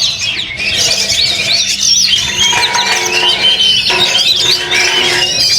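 Oriental magpie-robins (kacer) singing at full volume in a rapid, unbroken stream of varied chirps, trills and whistles, several birds overlapping. From about halfway in, a lower held tone runs under the song for a few seconds.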